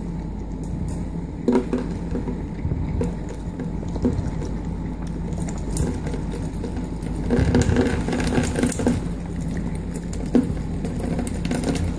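Water trickling in a thin stream from the tap of a countertop water dispenser, over a steady low hum, with scattered small clicks.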